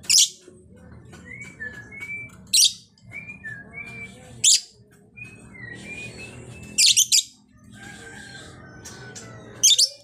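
Female lovebird calling and chattering: about five loud, shrill high-pitched calls a couple of seconds apart, with softer short chirps and twitters between them.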